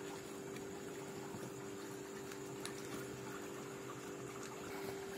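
Steady background hum with a few faint, scattered clicks and taps.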